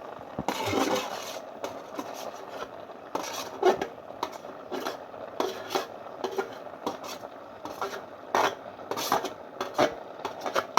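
A metal utensil clinking and scraping against a cooking pot, with irregular knocks and scrapes, some ringing briefly.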